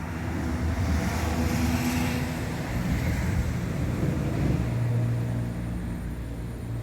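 A motor vehicle running and passing by, a steady low engine hum with a swell of road noise about one to three seconds in.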